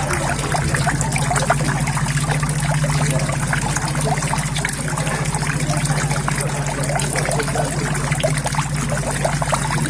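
Water trickling and splashing steadily into a koi pond, a continuous dense patter over a steady low hum.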